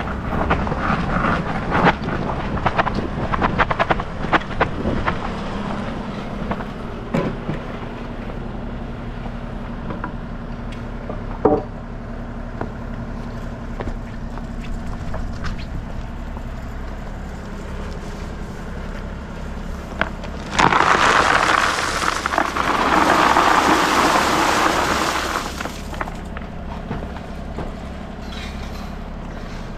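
The small engine of a Yardmax motorized tracked wheelbarrow runs steadily with a buzzy drone, under scattered clicks and knocks over the first half. About two-thirds of the way through, a loud rush of noise lasts about five seconds.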